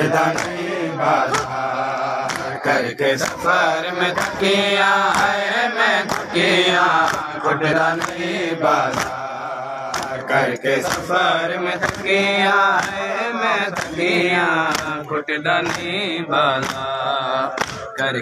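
Men's voices chanting a Saraiki noha, a Shia lament, with a wavering, drawn-out melody. It is kept in time by sharp strikes about two to three times a second: the matam of hands beating on chests.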